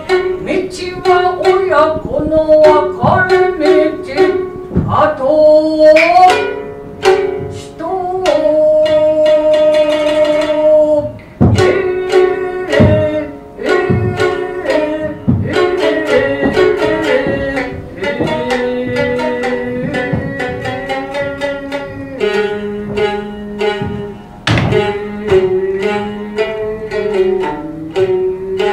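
Gidayu-bushi: a joruri narrator chanting and singing the story in a pitched, bending voice with long held notes, over the sharp plucked strokes of a futozao shamisen.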